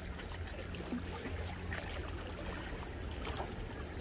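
Seawater washing and lapping over shoreline rocks, with small trickles and a steady low rumble underneath.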